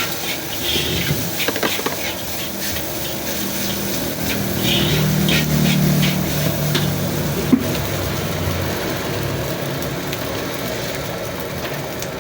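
A motor vehicle engine running close by, its hum swelling for a few seconds midway, over a steady background noise with scattered sharp clinks in the first half.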